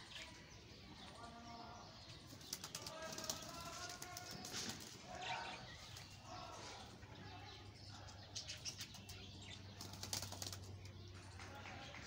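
Domestic pigeons flapping their wings in short bursts as they hop up into the loft, with faint cooing.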